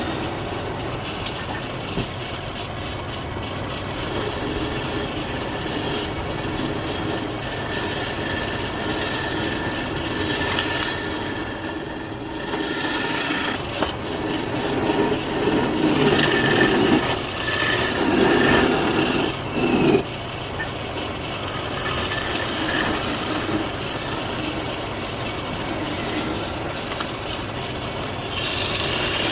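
Wood lathe running while a turning tool cuts into the spinning wood, a steady scraping hum that grows louder and uneven from about halfway through.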